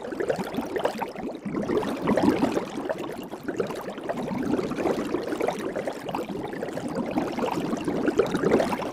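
Soap bubbles fizzing and popping: a dense, unbroken crackle of many tiny pops that swells and eases in level.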